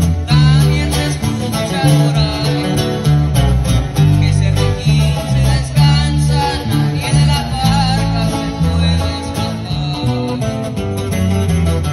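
Live band music: an electric bass and a guitar playing, with a man singing into a microphone, amplified through a PA speaker.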